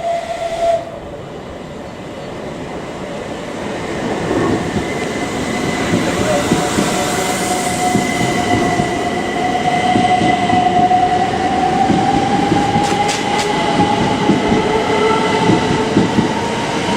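An electric train running through the station, a rumble of wheels on rail building up from about four seconds in, with a sustained motor whine that slowly rises in pitch. A brief loud note sounds right at the start.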